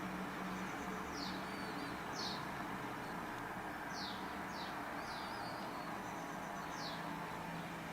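Small birds chirping and twittering: about five short, quick high chirps and some thin warbling whistles, over a steady low background hum.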